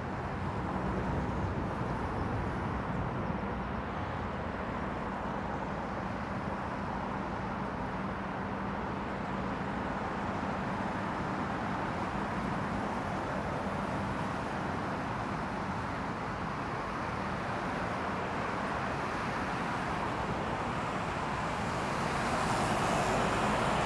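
Jet engines of a British Airways Boeing 777-200ER on final approach, a steady rushing drone that swells near the end as the airliner comes closer.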